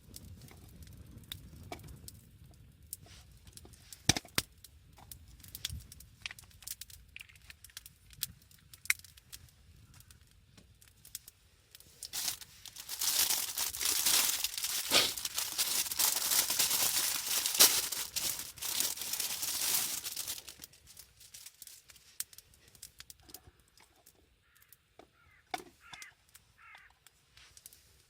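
Food packaging being crinkled and torn open for several seconds, with scattered small knocks and clicks of handling before and after.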